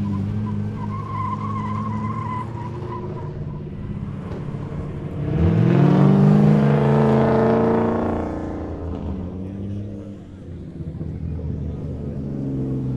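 Drift car engines idling. About five seconds in, one revs up hard with a climbing pitch, runs loud for about three seconds, then drops back to idle.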